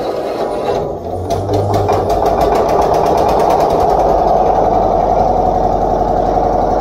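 Isuzu Forward truck diesel engine turning over with a fast, even mechanical clatter that settles into a steady beat about a second in.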